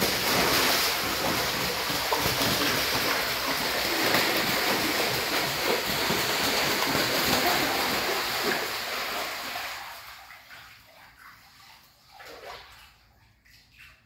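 Muscovy duck bathing, splashing hard in the water: the splashing starts suddenly, keeps up for about ten seconds, then dies away to light sloshing.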